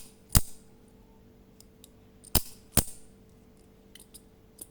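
Sharp metallic snaps of a mini OTF automatic knife's spring-driven blade firing out and retracting: a loud snap early on, then a pair of loud snaps about half a second apart, with a few small clicks near the end.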